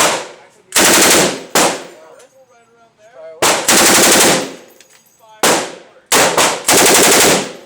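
Fully automatic gunfire fired in short bursts: about six or seven bursts of rapid shots, the longest lasting about a second, with brief pauses between.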